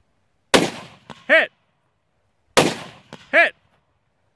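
Two AR-15 rifle shots about two seconds apart, each answered under a second later by a short ring from a distant steel target being hit.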